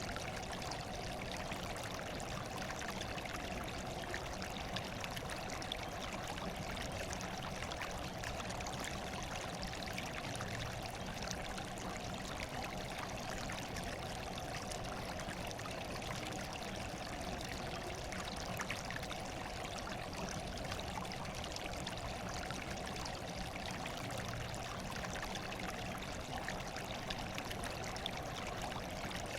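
Steady running water, an unbroken pouring and trickling rush with no change in level.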